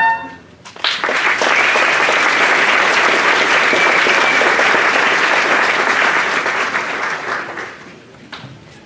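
The last chord of music stops right at the start, then an audience claps for about seven seconds before the applause dies away near the end.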